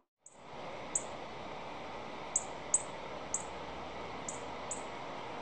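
Outdoor ambience: a steady hiss of background noise, with six short, very high bird chirps that each drop in pitch, scattered through it.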